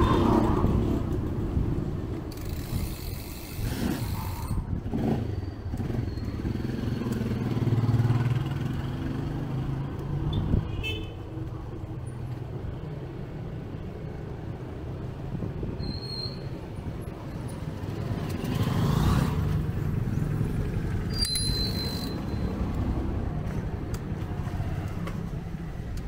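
Street traffic: motorcycles and cars passing with engines running, their rumble swelling and fading as each goes by, and a few short horn toots.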